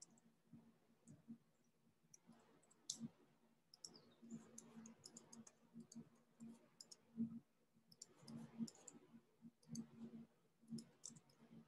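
Faint, irregular clicking of a computer mouse over a low steady hum, near silence otherwise.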